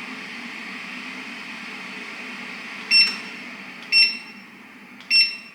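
SilverCrest bladeless fan heater running with a steady hum of moving air, then beeping three times, about a second apart, as its mode button is pressed. The air noise gets quieter toward the end.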